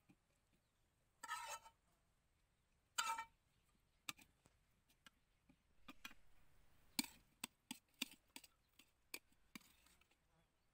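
Metal spoon scraping and clinking against a plate as stir-fried pork is scooped: two short scrapes in the first few seconds, then a run of light clicks and taps.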